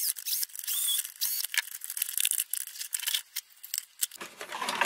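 Electric screwdriver whining as it drives screws into an RC car's plastic front bumper, with short runs of the motor and clicks over the first second or so. Scattered clicks and plastic rattling follow as the parts are handled.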